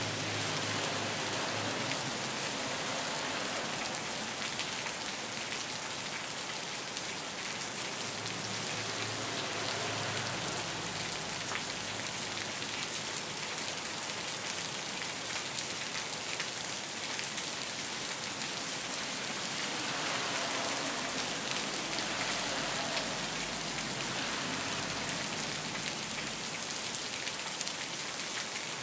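Steady rain falling on bare soil.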